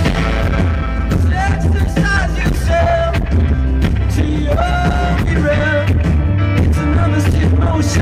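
A rock band playing live, with electric guitar, bass guitar and a male lead vocal line over a heavy low end.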